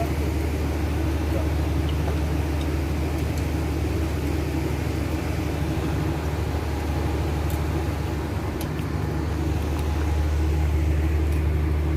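Steady low drone of a ship's engines and generators running, with a few faint clicks.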